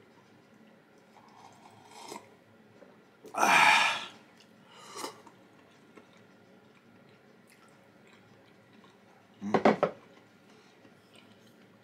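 A person eating quietly, with soft chewing. About three and a half seconds in there is a loud breathy, hissing rush of air, a softer one at five seconds, and near the end a short rapid cluster of clicks.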